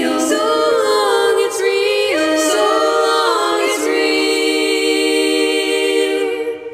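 A cappella choir of one singer's voice multitracked in several parts, singing the closing phrase in church-style reverb. About four seconds in, the voices settle onto a held chord that begins to fade out near the end.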